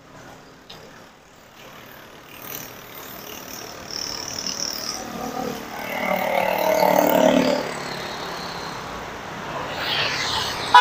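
Street traffic on a city road: a motor vehicle passes close by, swelling about six seconds in and fading after eight, with more traffic rising near the end.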